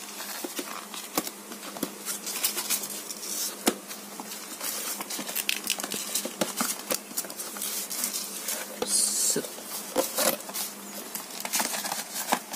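Cardboard box flap and brown kraft-paper wrapping rustling and crinkling as they are handled, with many small clicks and crackles throughout.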